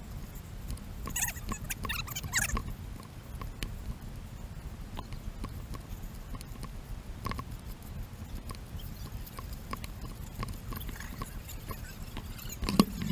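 Hiker's footsteps on a sandy dirt and granite trail, an irregular run of small scuffs and ticks over a low wind rumble on the microphone. A sharp knock near the end is the loudest sound.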